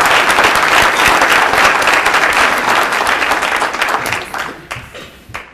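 Audience applauding: dense, steady clapping that tapers off over the last couple of seconds.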